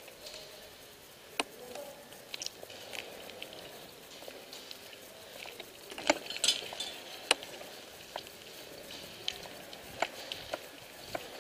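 Footsteps crunching slowly over rubble and debris, with scattered sharp clicks and ticks.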